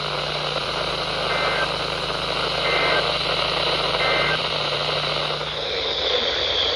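Weather radio static, a steady hiss with a low hum under it, with three short two-tone data bursts about 1.4 s apart: the SAME end-of-message code that closes an emergency alert broadcast.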